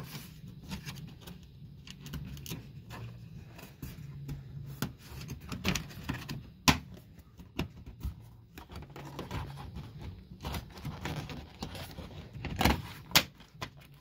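Plastic trim parts of a car's charging-socket housing being handled and fitted back into place: scattered light clicks and rattles, with a sharper click about halfway through and two more near the end, over a faint low hum.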